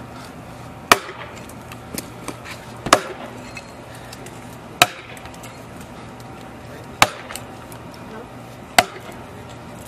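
An axe chopping into a large log: five sharp chops about two seconds apart, with a few fainter knocks between them.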